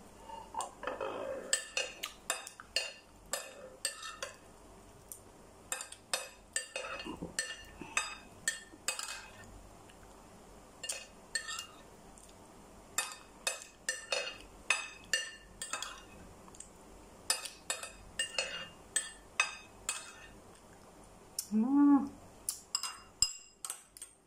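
Spoon and fork clinking and scraping against a dinner plate while eating, in an uneven run of short clicks. A brief voice-like sound comes near the end.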